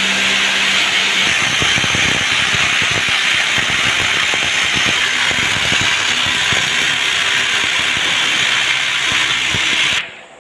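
Corded electric hammer drill boring into a plastered wall, running steadily at full speed with its rapid hammer action. These are the holes for plastic wall plugs. The sound cuts off near the end.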